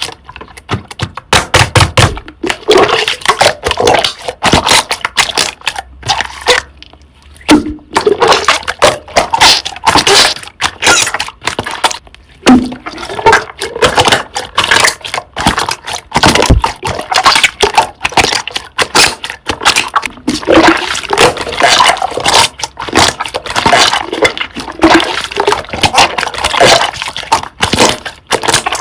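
Hands squishing, stretching and pressing a thick, creamy slime, making a dense run of sticky, wet clicks, pops and crackles.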